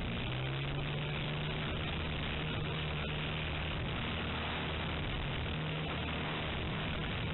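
Radio-controlled model airplane's motor and propeller running steadily, heard through a camera riding on the plane, with a steady hiss underneath. The pitch rises slightly at the start as it throttles up for takeoff, then holds.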